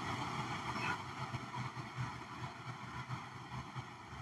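Faint steady background noise with a low rumble and no distinct event.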